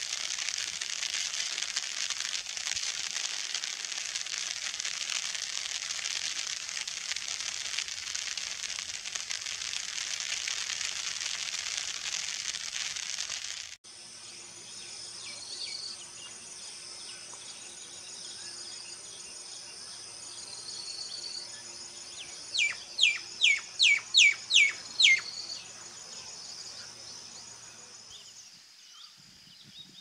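Natural outdoor ambience in two clips. First, a dense, even high-pitched insect chorus. After an abrupt cut about halfway, steady high cricket trilling, with a bird giving a rapid run of about eight loud, sharply falling notes about three-quarters of the way in.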